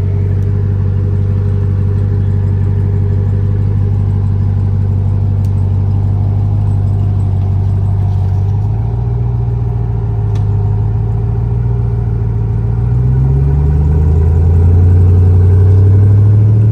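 Full-size pickup truck's engine running at low revs while crawling off-road, then rising in pitch and getting louder about thirteen seconds in as it is given throttle.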